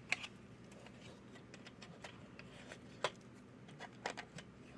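A few light, sharp clicks and taps from handling the plastic parts of a diecast model truck: one right at the start, one about three seconds in and a couple just after four seconds, over faint room noise.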